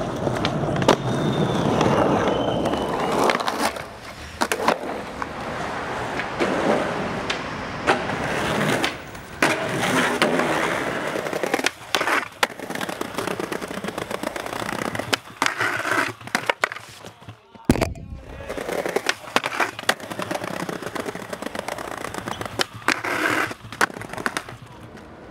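Skateboard wheels rolling on concrete pavement, broken by many sharp clacks of the board popping and landing.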